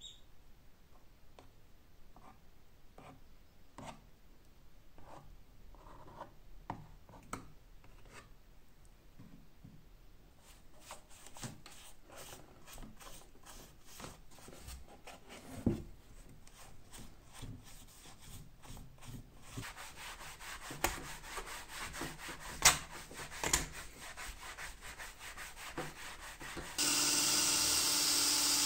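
Soft taps as dabs of petroleum jelly go onto the leather of an antique bellows, then a long stretch of rubbing with a few knocks as it is worked into the leather. Near the end an electric drill starts and runs steadily, spinning a brass tube against a hand-held strip of sandpaper; this is the loudest sound.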